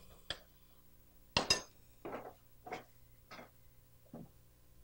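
A utensil clinking against a glass mixing bowl: a single click, then a louder double clink about a second and a half in, followed by a few softer, duller knocks.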